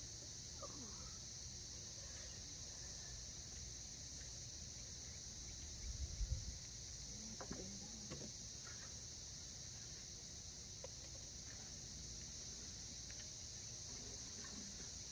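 Steady high chirring of insects, with a cluster of soft low thumps about six seconds in.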